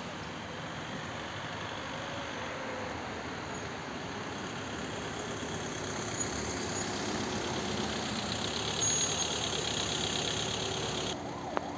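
Vehicle engine running steadily, growing louder about six seconds in, with a fast regular ticking high in pitch through the second half. The sound changes abruptly near the end.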